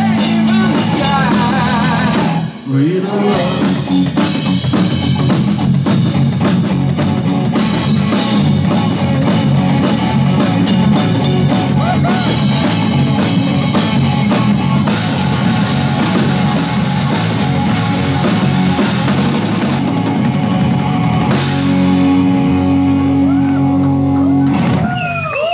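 Live rock band playing loudly: electric guitar, bass guitar and a Sonor drum kit. It drops out briefly about two and a half seconds in, and it ends on a held chord near the end.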